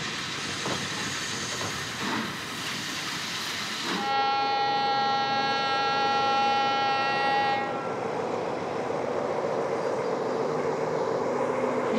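A steam locomotive hissing steam, then, about four seconds in, one long steady locomotive horn blast lasting a few seconds, followed by the rumble and wheel clatter of a freight train rolling along the track.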